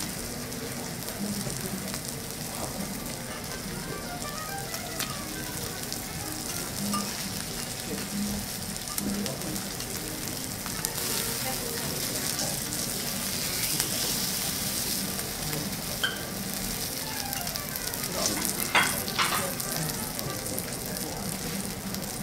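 Matsusaka beef sirloin steak sizzling steadily on a hot teppanyaki griddle. A few sharp metal clicks and scrapes of the knife and spatula against the griddle come late on, the loudest a few seconds before the end.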